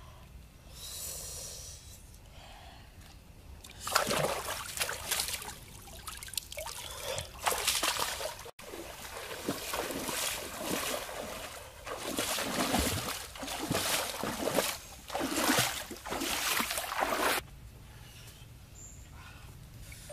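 Water splashing and trickling in irregular bursts. It starts about four seconds in and stops a few seconds before the end.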